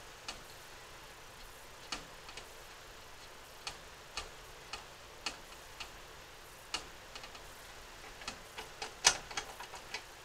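Screwdriver working the screws of a cable clamp connector on a metal breaker box: scattered light clicks, coming quicker near the end, where one is much louder than the rest.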